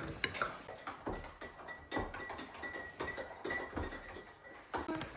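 Dishes and cutlery clinking: scattered light clicks and knocks of tableware being handled.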